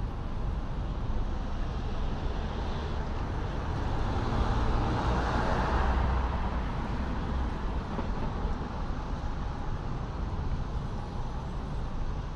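Street traffic: a motor vehicle passes close by, its road noise swelling to a peak about halfway through and then fading. A steady low rumble of traffic runs underneath.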